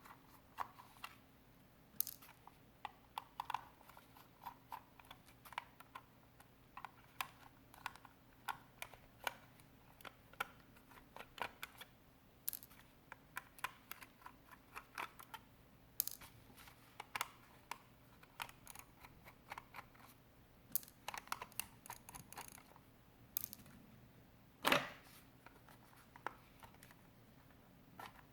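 Small irregular clicks and taps of a precision screwdriver and tiny screws on the plastic shell of a Logitech G Pro X Superlight mouse as its housing screws are taken out, with one louder knock near the end.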